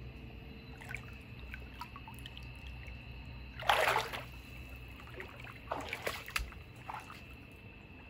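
Hot-spring bath water splashing and trickling as someone moves in the tub: small drips and ripples, one louder splash about four seconds in, then a few smaller splashes.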